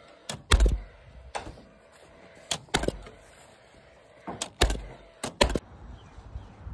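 Timber roof battens being nailed down onto rafters through roofing membrane: about nine sharp knocks at uneven intervals, several in quick pairs.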